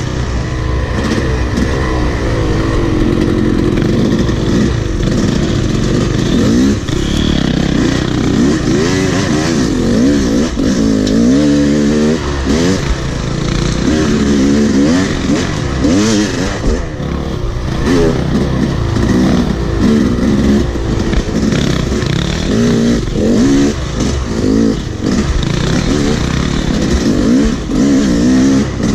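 Yamaha YZ dirt bike engine being ridden hard on a rough trail, its revs rising and falling again and again with quick throttle changes.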